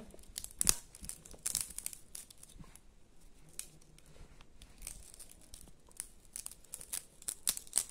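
Sharp crackles and rustles of dry, papery material being torn and crinkled by hand, coming in scattered clusters. They thin out about three seconds in and pick up again near the end.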